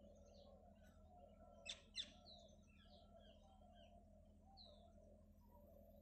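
Faint, scattered bird chirps over a low steady background hum, with two short clicks close together about two seconds in.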